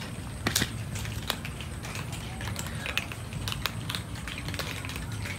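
Several cats chewing dry kibble: many small, irregular, overlapping crunches over a steady low rumble.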